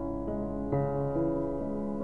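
Piano music, a new note or chord struck about every half second and left to ring.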